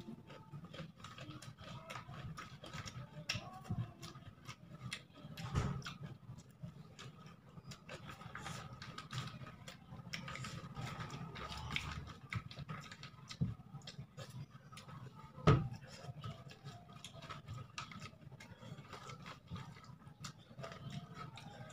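Close-up eating sounds: chewing and lip smacking as rice is eaten by hand, with crackling rustles of the paper food wrapper. Two louder thumps, about six seconds in and about fifteen seconds in.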